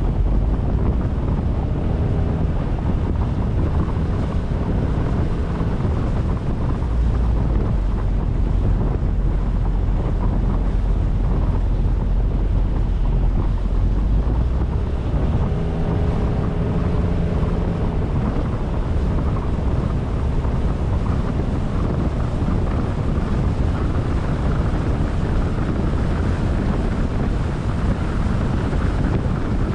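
Wind buffeting the microphone: a loud, steady low rumble and rush.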